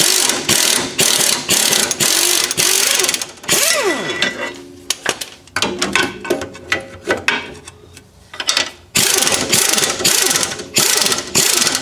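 Impact wrench hammering on the rear lateral link's suspension bolt in two long bursts, each ending in a falling whine as the tool winds down. Between the bursts come scattered metal clinks and taps.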